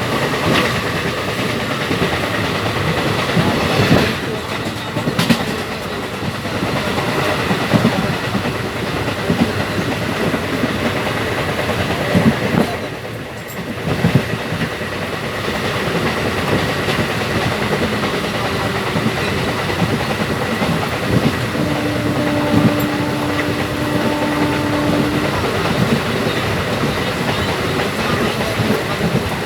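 Moving train, its wheels rattling and clicking over the track with a continuous rumble. A steady tone sounds for a few seconds about two-thirds of the way through.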